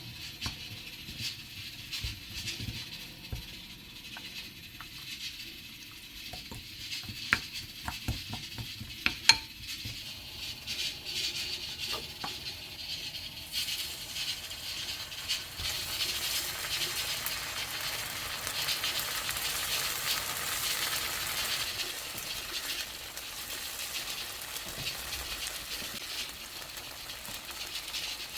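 Food sizzling in a hot frying pan, with a few sharp clicks of a utensil against the pan in the first half; the sizzle grows fuller and louder a little before halfway through.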